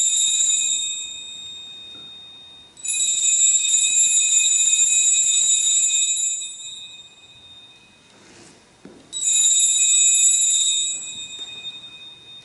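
Sanctus bells, a cluster of small altar bells, shaken at the consecration of the wine, marking the genuflection and elevation of the chalice. There are three ringings: the first dies away in the opening seconds, the longest comes about three seconds in, and a shorter one comes about nine seconds in.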